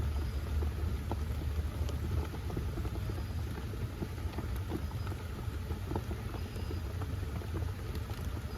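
Rain pattering on the bike camper's shell in light scattered taps over a low rumbling of wind, the rumble easing after about two seconds.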